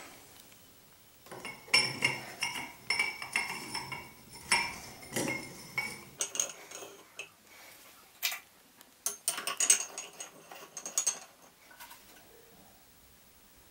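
Irregular clinks, taps and scrapes with short ringing tones as a frosted bulb is twisted into a metal wall light fixture's socket, hard glass and metal knocking together.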